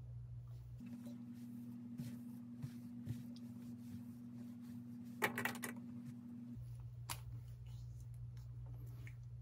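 A few light clicks and taps over a steady low hum, the loudest a short clatter of clicks about five seconds in.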